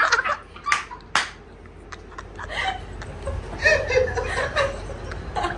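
Hearty laughter from a boy and a young woman, coming in fits, with two sharp smacks about a second in.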